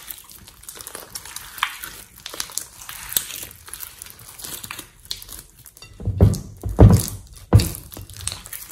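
Thick glittery slime being stretched and squeezed by hand, giving a run of small sticky crackles and pops. From about six seconds in come several louder, deeper squelches as the slime is squashed and pressed down into the glass bowl.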